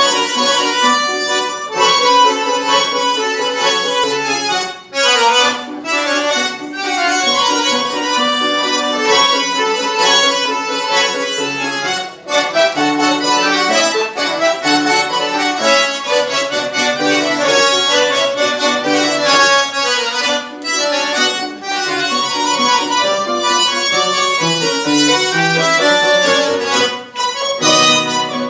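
Two accordions playing a lively duet with piano accompaniment. The music breaks off briefly between phrases a few times.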